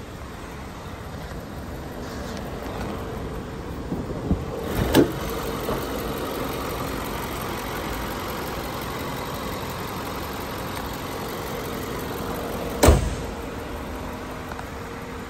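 2020 Jaguar F-PACE's 2.0-litre turbocharged four-cylinder engine idling steadily. A few knocks and a thud about five seconds in come as the hood is raised, and a single loud slam near the end comes as the hood is shut.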